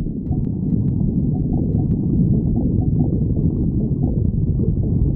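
A stomach growling: a continuous low rumble with short gurgles running through it.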